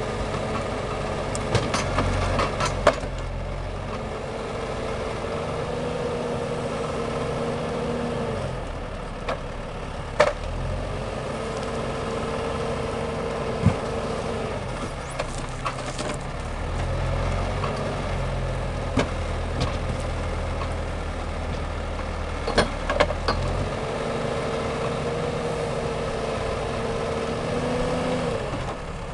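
Valtra tractor's diesel engine running steadily while its hydraulic forestry crane works, with a whine that comes in three times for a few seconds as the crane is worked and the engine note shifting with the load. Scattered sharp knocks of logs and the grapple striking wood.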